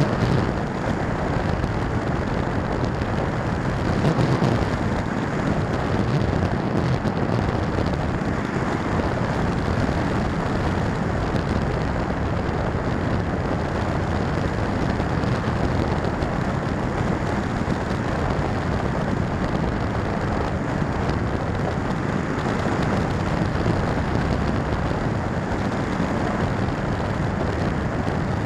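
Steady wind rush over the onboard action camera's microphone as the Firstar 2000 V2 FPV glider flies, a constant noise with no clear motor pitch.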